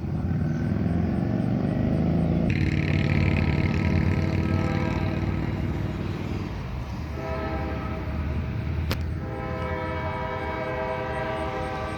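Diesel-hauled freight train going by with a heavy, steady rumble. About seven seconds in, a steady multi-note chord joins it, sounding like the locomotive's air horn.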